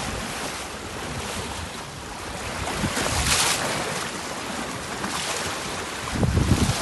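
Wind buffeting the microphone and water rushing past a sailboat's hull, with a louder hiss of water about three seconds in and low gusty rumbles near the end.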